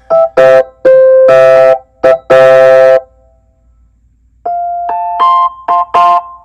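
Logic Pro's Classic Electric Piano software instrument playing back a recorded beginner's chord progression: several short chords, a pause of about a second and a half, then the chords start again.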